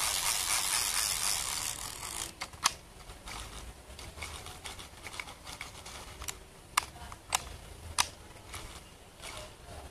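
Freshly greased and reassembled Sougayilang Thunder LS40R overhead reel being tested: the handle is cranked and the gears whir for about two seconds, then a few sharp clicks follow as its levers are worked.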